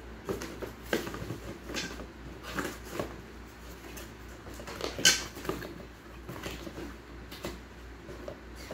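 Plastic wrapping crinkling and a cardboard box being handled, its top flaps pushed shut, giving a run of rustles and light taps with one sharp crackle about five seconds in.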